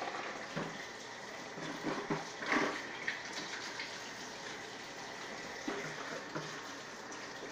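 Kitchen faucet running steadily into the sink while hands are washed under it, with a few light knocks of things being handled in the sink.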